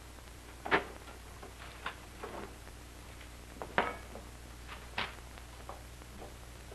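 A few short, irregularly spaced clicks and knocks, the loudest about a second in and just under four seconds in, over the steady low hum of an old film soundtrack.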